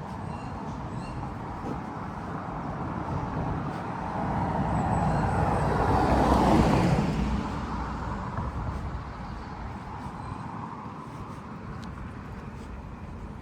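A car driving past, its engine and tyre noise swelling to a peak about six and a half seconds in and then fading away, over a steady background of street hum.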